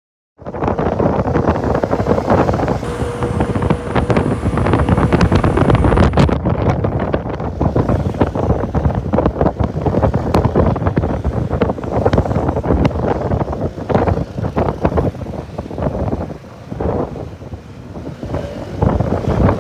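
Wind buffeting the microphone of a rider on a moving Honda SH125 scooter, over road and traffic noise. It starts suddenly about half a second in and eases a little near the end.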